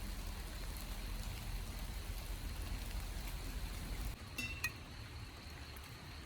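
Steady rain, with a few short, ringing clinks about four and a half seconds in.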